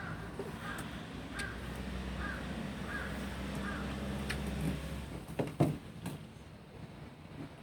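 A crow cawing repeatedly, a short call about every two-thirds of a second through the first half, over a low steady hum that stops about five seconds in, followed by a few sharp knocks.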